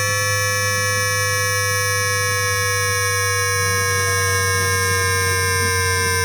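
Times Electric tPower-TN28 VVVF traction inverter, picked up electromagnetically by an inductor coil rather than a microphone: a dense chord of steady electronic whining tones, all sliding slowly down in pitch together over a constant low hum.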